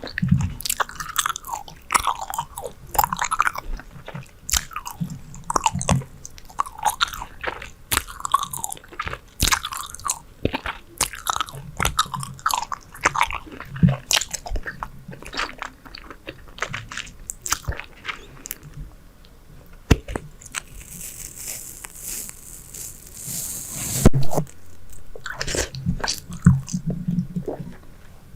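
Close-miked chewing of Super Bubble bubble gum: a dense run of wet smacks and clicks. About 20 seconds in, a steady airy hiss runs for a few seconds and ends in one loud, sharp snap, and then the smacking goes on.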